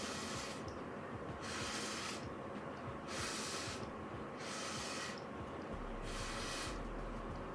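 Breath blown through a drinking straw in repeated puffs of airy hiss, about one every second and a half, pushing wet acrylic pour paint across the canvas so that it laces.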